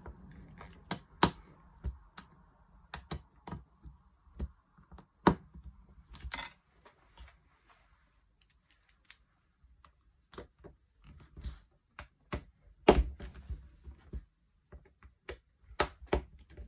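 Irregular clicks, taps and light knocks of small tools and parts being handled on an opened MacBook Pro laptop, with the loudest knock about thirteen seconds in.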